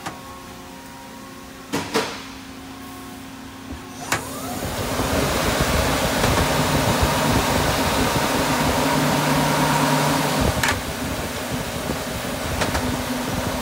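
Takisawa TT2100G CNC lathe running, its spindle humming steadily, with a few sharp clacks in the first seconds. About four seconds in, a loud rushing hiss of coolant spray starts and carries on to the end, with a few more clacks.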